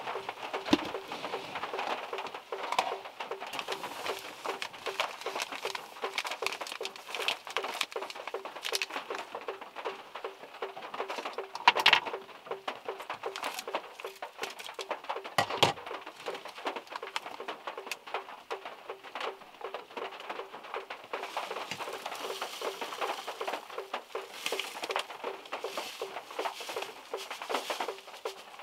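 Rain and drops falling from trees, pattering irregularly on a small car's roof and body, heard from inside the car, with a few heavier single drops landing louder.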